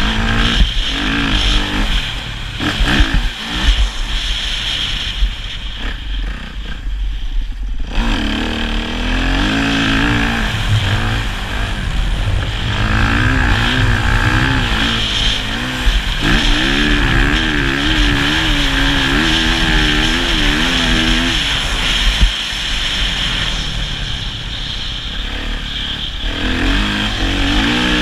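Motocross bike engine revving hard, its pitch rising and falling over and over as the throttle is worked through the lap, over a steady heavy rumble.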